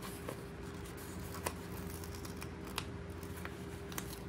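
Paper sticker sheet handled and stickers peeled off by hand: soft paper rustling with several sharp crinkling ticks.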